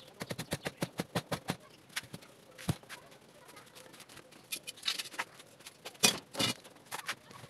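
Clicks and knocks from hands working on an old refrigerator cabinet converted into an incubator: a quick run of light clicks in the first second and a half, scattered clicks after, then two louder knocks about six seconds in.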